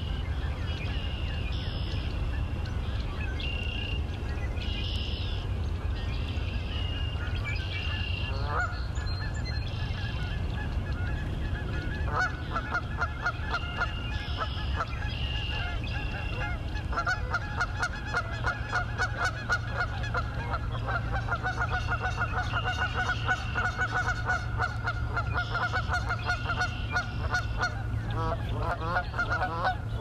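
Geese honking, starting about twelve seconds in and building into a near-continuous run of calls toward the end as a pair flies past. A short, high bird call repeats every second or two underneath, over a steady low rumble.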